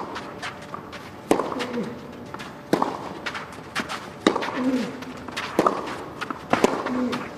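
Tennis rally on a clay court: a serve and then five sharp racquet strikes on the ball, roughly one every one and a half seconds, each followed by a short grunt from the player. Shoes scuff on the clay between shots.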